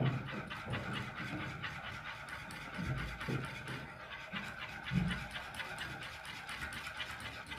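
Hand wire whisk stirring a thick caramel cream in a metal saucepan, the wires scraping and clicking against the pan in quick, repeated strokes.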